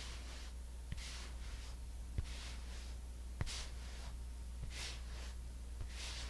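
Soft, irregular swishing strokes of skin-care props being brushed or dabbed, roughly one every half second to second, with a couple of faint sharp clicks, the sharpest about two seconds in. A steady low hum runs underneath.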